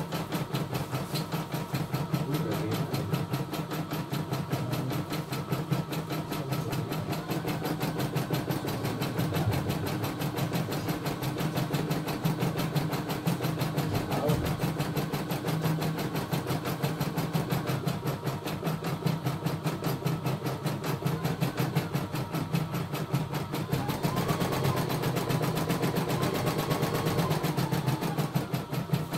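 CNY E960 computerized embroidery machine stitching a design: a fast, even run of needle strokes over a steady motor hum.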